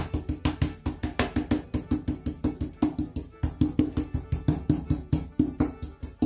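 Metal meat mallet pounding raw chicken fillets on a wooden cutting board: a rapid, even run of sharp thuds, about five a second, that starts and stops abruptly.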